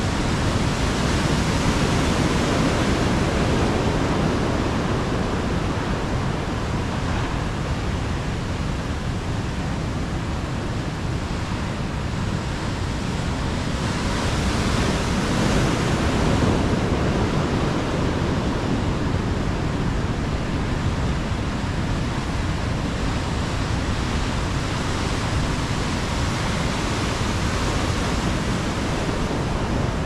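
Ocean surf breaking under stormy, rainy weather: a continuous rush of water and rain that swells a little a couple of seconds in and again around the middle.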